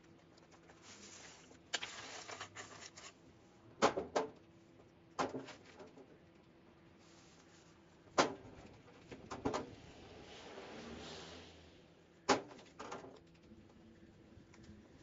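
Cut hedge branches being dragged and heaved onto a trailer: leafy rustling broken by several sharp knocks.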